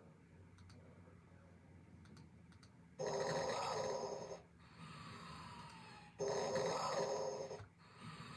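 Snoring in a slow rhythm: a loud rasping snore starts suddenly about three seconds in and again about six seconds in, each lasting about a second and a half. Between the two snores comes a quieter breath with a faint falling whistle.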